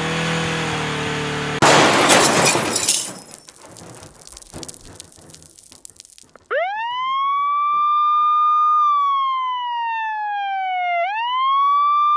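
An engine revs up, then about a second and a half in comes a loud crash with shattering glass, followed by a few seconds of debris clattering and tinkling down. About six seconds in, an emergency-vehicle siren starts up and wails, rising quickly, falling slowly, then rising again.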